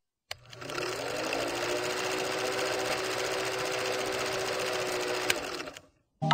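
Film projector sound effect: a steady mechanical clatter with a faint hum under it, starting with a click and cutting off suddenly just before the end, with one sharp click a little after five seconds in.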